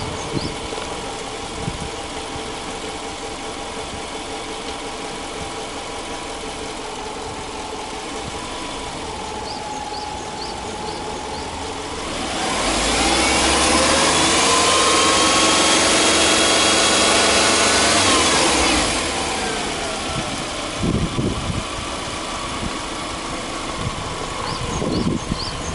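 Subaru Legacy 2.0R's EJ20 flat-four boxer engine idling steadily. About halfway through it is revved and held high for about six seconds, then drops back to idle. A few knocks come near the end.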